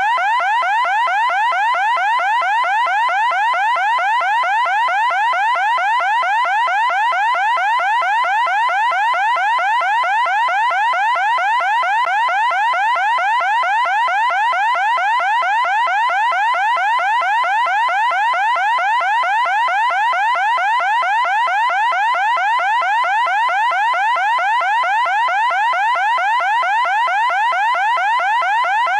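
Loud electronic siren tone, rising in pitch over and over in rapid, evenly repeating sweeps, several a second, steady and unbroken.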